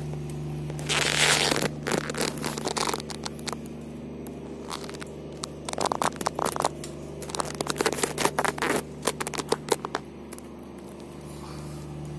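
Scrapes and irregular sharp clicks of someone moving about on a gritty concrete floor inside a small concrete pillbox, with a loud scrape about a second in and bursts of clicks in the middle and latter part, over a steady low hum.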